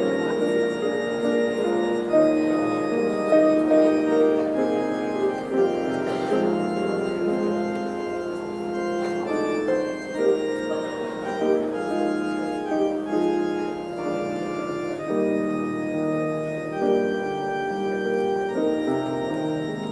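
Church organ playing a slow piece of long, held chords.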